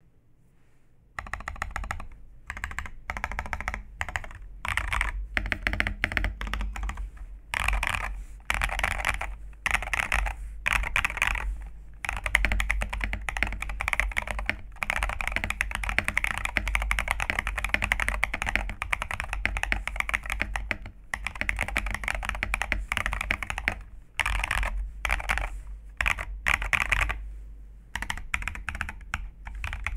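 Typing on a custom mechanical keyboard. Rapid keystrokes come in bursts with short pauses between them, starting about a second in.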